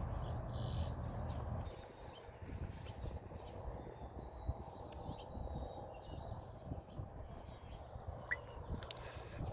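Small birds chirping now and then, short high calls, over a low outdoor rumble that drops off about two seconds in.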